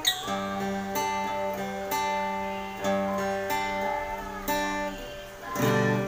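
Thomson TS-388 38-inch cutaway acoustic guitar being played: chords struck about once a second and left to ring, with a louder strum shortly before the end.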